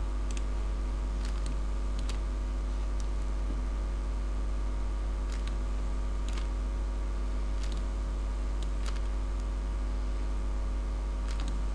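Steady electrical hum and buzz from the recording setup, made of many fixed tones, with a few faint scattered clicks at the computer.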